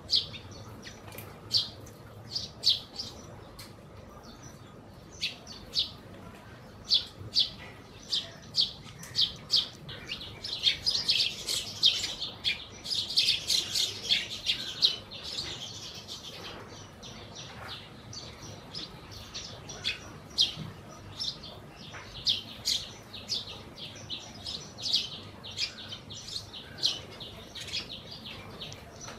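A flock of house sparrows and Eurasian tree sparrows chirping: short repeated chirps every half second or so, thickening into a dense burst of overlapping chirping from about ten to sixteen seconds in.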